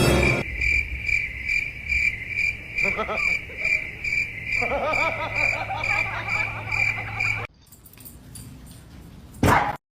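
A high chirp repeating evenly about three times a second over a low steady hum. Brief wavering calls come in about three and five seconds in. The chirping stops suddenly past the middle, leaving faint noise, and a single sharp click comes near the end.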